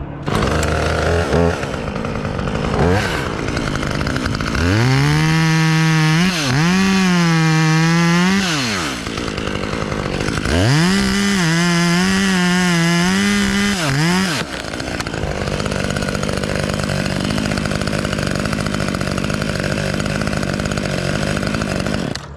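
Chainsaw revved to full throttle twice, each run lasting about four seconds, with the pitch sagging and recovering as the chain cuts into the aspen wood. Between and after the cuts the saw drops back to a lower, steady running sound.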